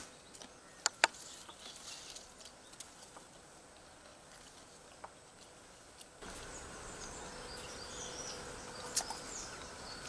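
Outdoor ambience with faint high chirping. Two sharp clicks about a second in, and from about six seconds in a louder steady background with chirps over it.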